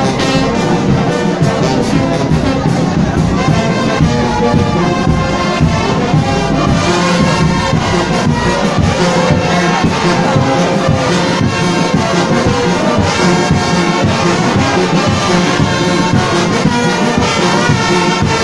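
Kimbanguist church brass band (fanfare) playing a parade 'animation' tune, the brass ensemble sounding together over a steady beat.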